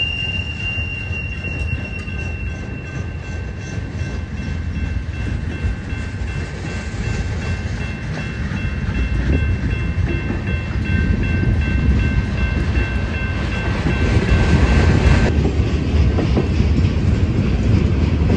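Freight train of flatcars rolling past: a steady rumble of steel wheels on rail with a thin, high wheel squeal from the curve that fades out. About 15 seconds in, the sound changes abruptly to a louder, closer rumble and clatter of the cars passing.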